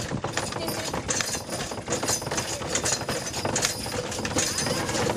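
A horse-drawn cart on the move: the horse's hooves clip-clopping amid the steady clatter and rattle of the cart's wheels and fittings.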